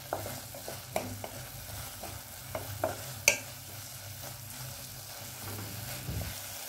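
Spatula stirring and scraping a thick tomato-onion masala in a nonstick pan over a faint steady sizzle, with scattered sharp taps of the spatula on the pan, the loudest about three seconds in.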